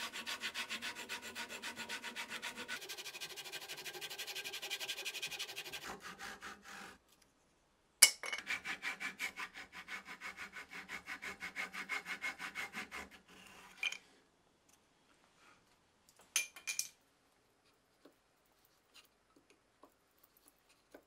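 Japanese pull saw cutting wood clamped in a wooden vise, in quick, even strokes. The sawing stops about six seconds in, starts again with a sharp knock about eight seconds in, and stops again a little after thirteen seconds. After that come only a few faint taps and short scrapes.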